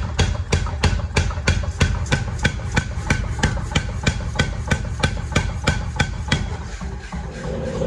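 Hammer striking steel in an even rhythm, about three blows a second, over a steady low hum, while forging bearing steel into a blade. The blows stop about a second before the end.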